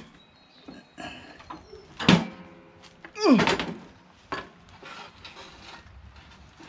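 A Kohler Courage single-cylinder engine being lifted off a lawn tractor's frame, its metal clunking and scraping against the frame. There are two loud clunks, about two and about three and a half seconds in, the second with a falling scrape, then smaller knocks.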